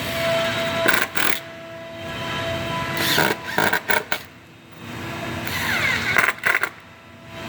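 Power driver driving screws into the table frame, three runs in a row, each building up and ending in a short burst of loud rattling strokes as the screw is driven home.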